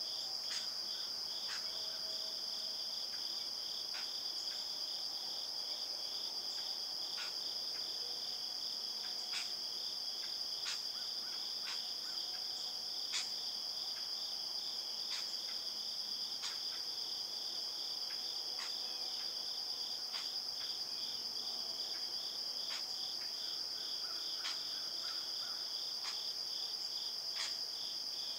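Steady chorus of calling insects in woodland: two unbroken high, shrill tones, one a rapid pulsing trill, with faint scattered ticks through it.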